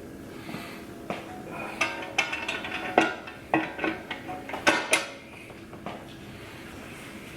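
Metal 48RE transmission parts clinking and knocking against each other and the case as they are handled and fitted, a quick run of sharp strikes for about five seconds.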